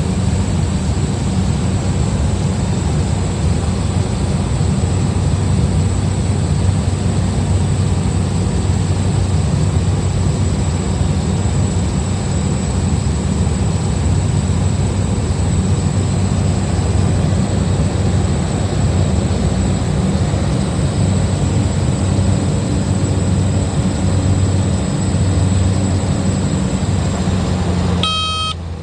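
A small plane's engine and propeller running steadily, heard from inside the cabin as a loud, even drone with a low hum. It cuts off suddenly near the end.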